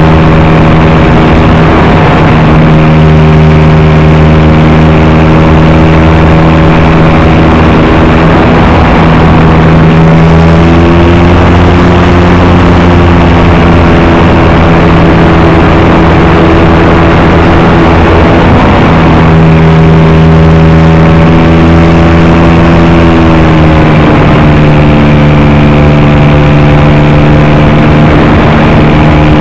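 A model airplane's motor and propeller run loud and steady, heard from the onboard camera. The pitch steps up about a third of the way in, then drops back in two steps later on as the throttle is changed.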